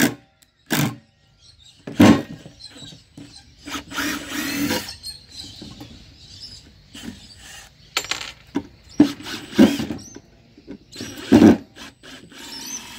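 Milwaukee M18 cordless impact driver running in reverse in several short bursts, the longest about a second, backing long wood screws out of a timber board.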